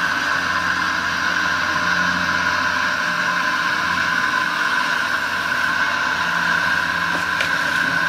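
Radio-controlled scale construction models running: a steady high electric whine of motors and gearing, with a low engine-like hum underneath.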